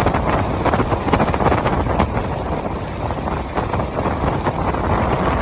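Wind buffeting the microphone: a steady rushing noise with scattered clicks and pops.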